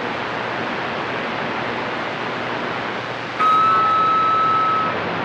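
CB radio receiver hissing with open-channel static on the 11-metre band. About three and a half seconds in, an incoming transmission keys up: the static jumps louder and a steady whistle tone sounds for about a second and a half, then stops.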